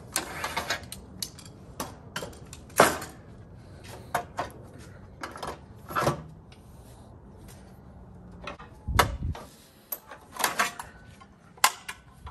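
Irregular clanks and knocks of metal parts being handled and fitted while a Shopsmith is set up for lathe turning, with a deeper thump about nine seconds in. No motor is running.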